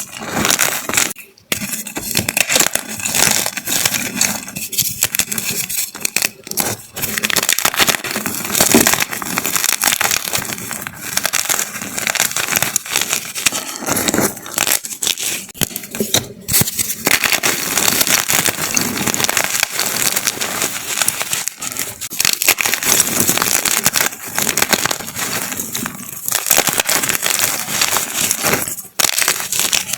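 Large pieces of chalk being crushed and crumbled in a continuous crunchy crackling, broken by a few short pauses.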